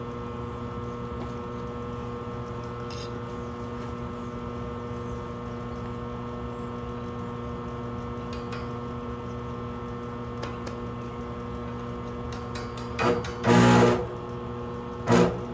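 Stick welder humming steadily, its cooling fan running. About 13 seconds in, an arc is struck in short loud noisy bursts, twice, with another brief strike near the end.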